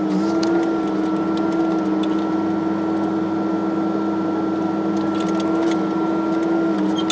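Backhoe loader's diesel engine running at a steady speed as the machine is driven along, a constant drone with a high whine above it, dipping slightly in pitch just after the start and again near the end.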